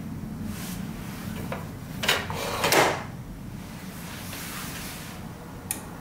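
A glass espresso shot cup is slid and lifted off the espresso machine's drip tray: a click about two seconds in, then a short scraping clatter, the loudest sound, with a single sharp tick near the end over a low steady hum.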